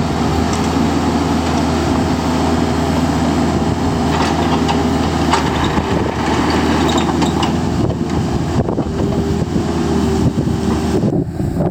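Kubota KX121-3 compact excavator's diesel engine running steadily at idle. Its note changes near the end.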